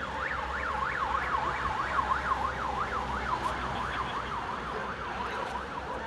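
Vehicle siren in a fast up-and-down wail, about three sweeps a second, growing fainter toward the end, over steady traffic noise.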